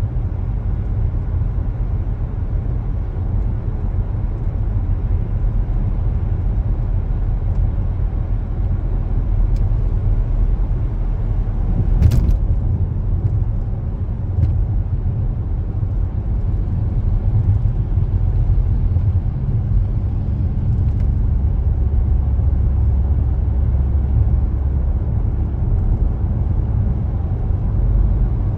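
Steady low road and engine rumble of a moving car, heard from inside the car, with a single sharp click about twelve seconds in.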